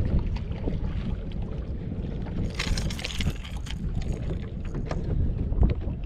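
Wind buffeting the microphone and small waves lapping against a bass boat's hull, with scattered light clicks. A brief burst of hiss comes about two and a half seconds in.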